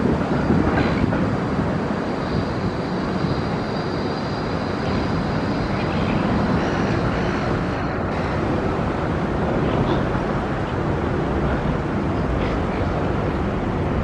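Steady low rumble of city traffic, with a faint high whine held for a few seconds starting about three seconds in.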